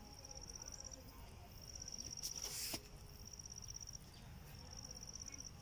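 An insect trilling in high-pitched bursts about a second long, repeating roughly every one and a half seconds, over a low rumble. A brief hiss comes about two and a half seconds in.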